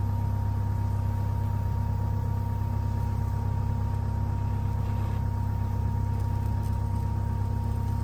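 A steady low mechanical hum with a faint high tone held above it, unchanging throughout.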